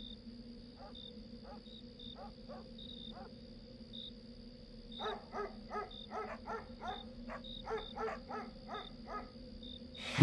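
Dogs barking faintly: a few scattered barks at first, then a quick run of barks about three a second through the second half. Underneath are a steady low hum and regular high chirps.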